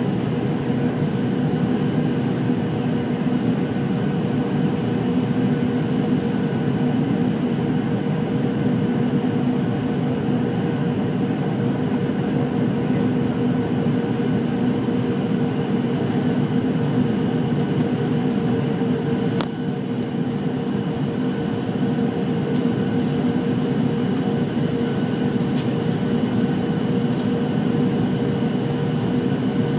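Steady cabin noise of a jet airliner on final approach, heard inside from a window seat beside the engine: a constant rush of engine and airflow with a steady low hum. One brief click about two-thirds of the way through.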